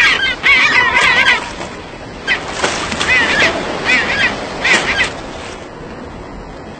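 An animal's honking calls in quick runs of short rising-and-falling notes, stopping about five seconds in.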